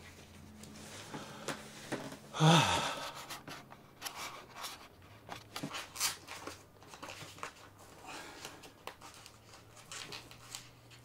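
Hands handling a life raft's webbing straps, buckles and plastic hose fitting: scattered rustles and small clicks, with one brief loud rush of noise about two and a half seconds in. A faint low hum runs underneath.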